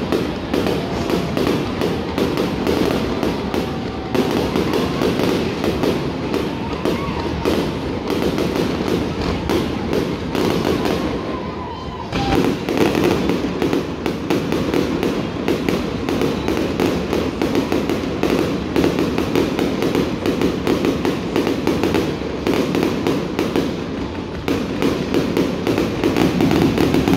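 Aerial fireworks display: a dense, continuous barrage of shell bangs and crackling, with a brief lull about twelve seconds in.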